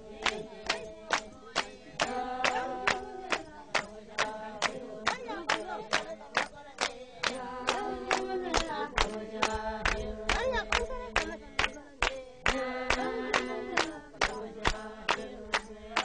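Music: voices chanting together over sharp percussive strikes at a steady beat of about three a second.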